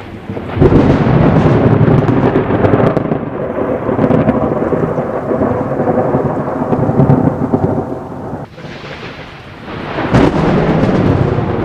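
Thunder: a sudden loud crack about half a second in, then rolling rumble for about eight seconds. It eases off, and a second rumble builds near the end, with rain falling throughout.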